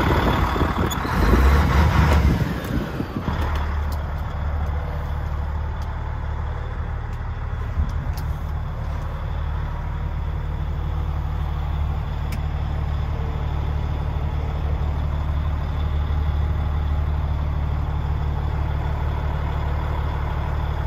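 DAF XF105's Paccar MX 460 hp diesel engine idling steadily, heard from inside the cab. A louder, broader rush with a rising sweep in the first three seconds gives way to the steady low idle, and there is one short knock about eight seconds in.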